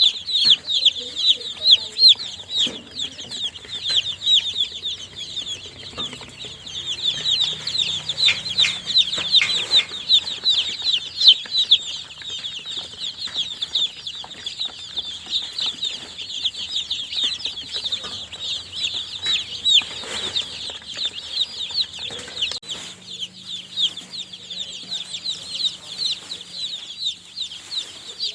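Newly hatched baby chicks peeping: many high, short, downward-sliding chirps, overlapping constantly as a busy chorus.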